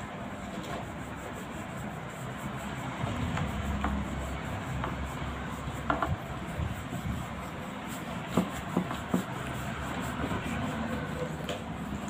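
Red oil pastel being scribbled back and forth on paper, a steady scratchy rubbing, with a few sharp taps about six seconds in and again between eight and nine seconds.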